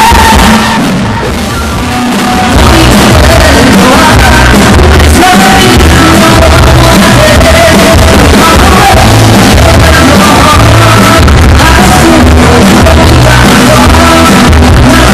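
A live band playing with a woman singing lead into a microphone, very loud throughout; the music dips a little in loudness for about two seconds just after the start.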